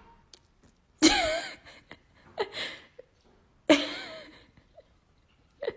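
A person laughing in high, wheezy, drawn-out bursts, about a second in and again near four seconds, with a few faint clicks in between.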